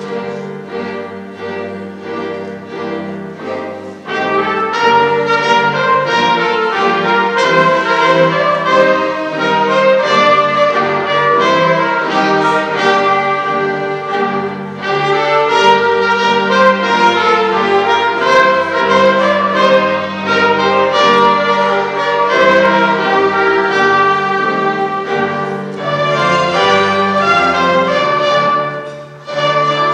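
A string ensemble of violins and cellos, with piano, playing a classical-style piece. It starts softer, then swells fuller and louder about four seconds in, with a brief drop shortly before the end.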